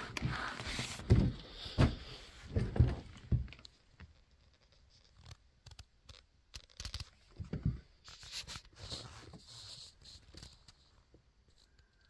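Rustling and scraping of a frost-covered fabric bag being handled, with a few dull knocks in the first few seconds. It then goes mostly quiet with scattered clicks, and there is more rustling about two-thirds of the way through.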